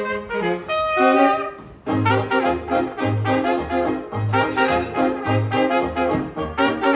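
Small hot-jazz band playing live, with brass and reed horns over a rhythm section. A horn phrase tails off into a brief break just before two seconds in, then the full band comes back in over a steady bass beat of about two notes a second.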